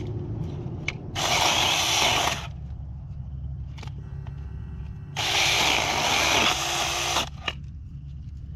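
Saker 4-inch mini cordless electric chainsaw cutting into a tree, in two runs: a short one of about a second near the start and a longer one of about two seconds about five seconds in.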